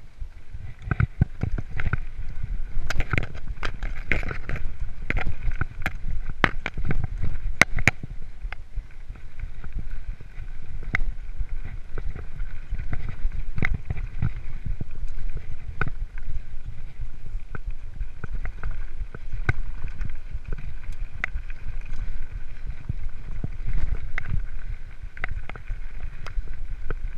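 Mountain bike riding fast down a loose, stony gravel trail. Wind buffets the microphone in a heavy rumble, while the tyres crunch over stones and the bike rattles and clacks over bumps. The knocks are thickest in the first eight seconds or so.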